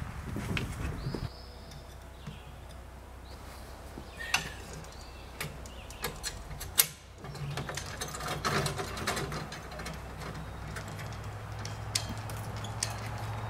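Scattered clicks and knocks of a small sailboat's rigging and fittings being handled, with birds chirping now and then. A low steady hum comes in about halfway through.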